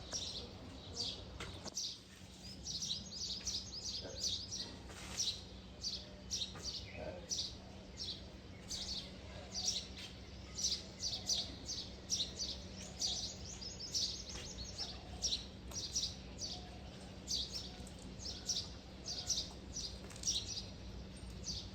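Small birds chirping: many short, high chirps in quick, overlapping runs, over a faint steady low hum.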